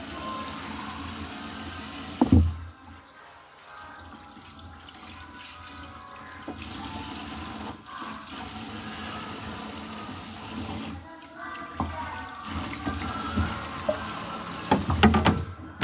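Water splashing and running in a kitchen sink as a tilapia is rinsed and scraped with a knife. A sharp knock comes a little over two seconds in, and a cluster of clatters near the end.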